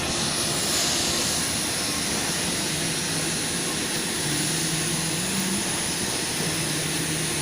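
Jet airliner's engines running, a steady rush of noise without let-up.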